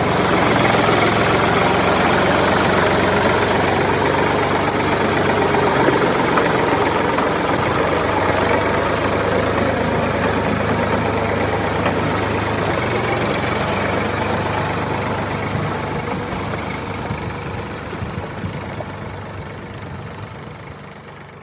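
Tractor engine running steadily at low revs, fading out gradually over the last several seconds.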